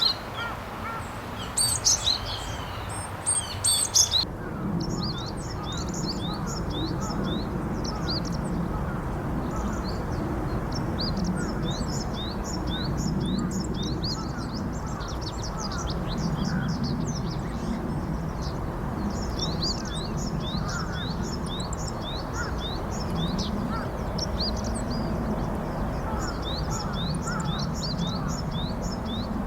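Japanese tits calling: a few loud, separate calls, then after a cut about four seconds in, a long, dense run of short high chirps over steady low background noise.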